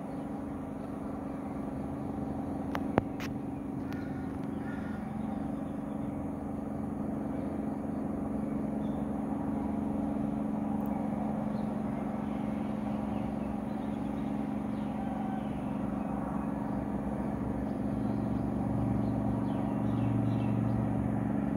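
A motor running steadily with an even drone, slowly growing louder toward the end, with a single sharp click about three seconds in.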